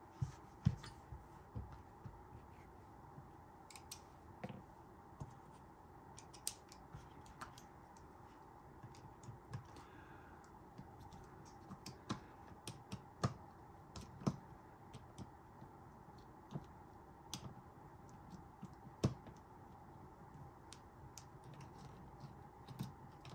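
Irregular small clicks and taps, a few louder than the rest, of a screwdriver and metal parts being handled while taking apart a Crosman 157 CO2 air pistol.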